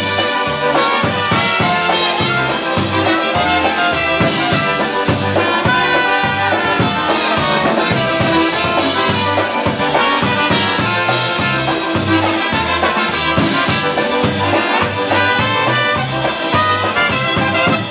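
Live polka band playing an instrumental passage: concertina and piano accordion carrying the tune over electric bass and drums, with a steady, even bass beat.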